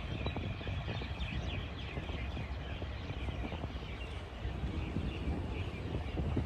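Small birds chirping and twittering many times over a steady low rumble.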